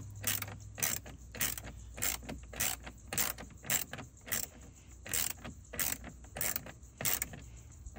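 Hand ratchet clicking in short, uneven runs, roughly one to two clicks a second, as small trim-panel screws are run in and snugged up lightly.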